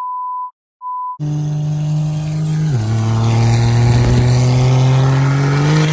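Two short censor bleeps, a pure steady tone, then an engine accelerating hard, heard from inside a vehicle's cabin. About three seconds in its pitch drops at a gear shift, then climbs steadily again.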